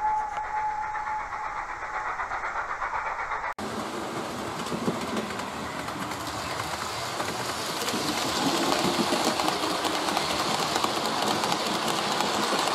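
A steady whistle-like tone fades out in the first second. After a sudden cut, a model railway train runs along the layout track: a steady rumble with rapid fine clicking of wheels on rails, growing louder from about the middle as the train passes.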